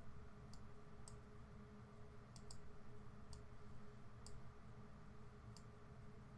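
Computer mouse clicking about seven times at irregular intervals, with two quick clicks close together about two and a half seconds in, over a faint steady low hum.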